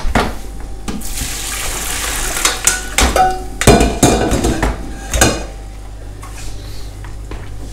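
Boiled salad potatoes being drained: hot water pours from a stainless steel pot into a colander in a steel sink with a rushing splash. About three seconds in come clatters and knocks of the pot and colander, one with a short metallic ring.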